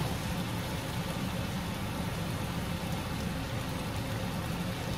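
Chicken pieces sizzling in a frying pan, a steady even hiss.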